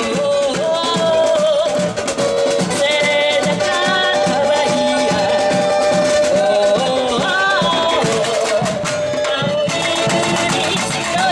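Samba bateria playing: surdo bass drums, snare drums and shakers beating a steady samba rhythm, with a melody over the drums.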